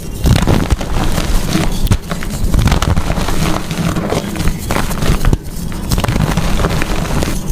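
Blocks of gym chalk being crushed, a dense run of crunching and crumbling crackles, with brief dips about two and five seconds in.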